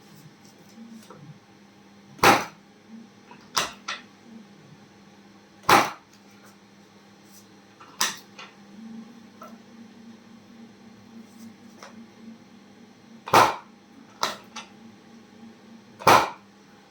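Chiropractic adjustments: four loud, sharp knocks at about 2, 6, 13 and 16 seconds in, with softer clicks between them.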